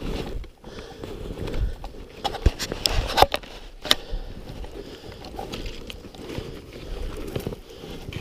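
Snowshoes crunching and scraping in deep wet snow, uneven steps on a climb with a few sharp clicks.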